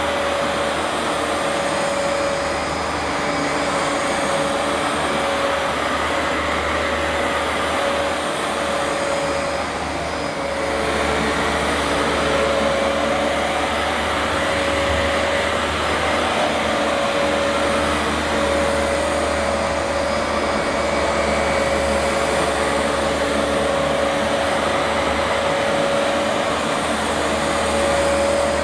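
Vax Platinum Power Max carpet washer's suction motor running steadily and noisily while cleaning carpet, with a constant whine over a rushing hiss that wavers only slightly in level.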